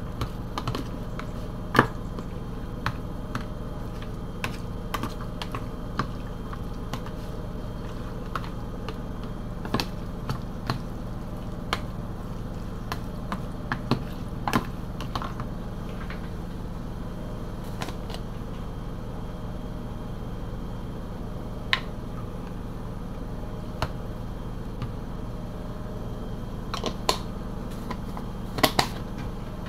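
A metal spoon stirring a raw ground-meat and diced-vegetable mixture in a plastic container: scattered irregular clicks and taps as the spoon knocks the container, with a few louder clicks near the end, over a steady low hum.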